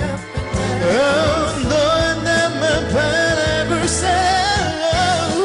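Music: a male singer holding long, wavering notes with vibrato over a pop band accompaniment.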